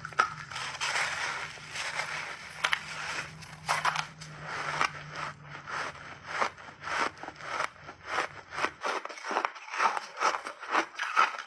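Close-miked biting and chewing of refrozen mixed-berry ice: dense crackling crunch at first, settling into a steady run of sharp chewing crunches about three a second.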